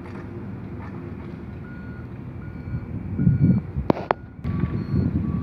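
Reversing beeper of a construction vehicle sounding short repeated beeps, about one every 0.8 seconds, over a steady outdoor background. A low gusty rumble swells around three seconds in and again near the end, with a sharp click just before four seconds.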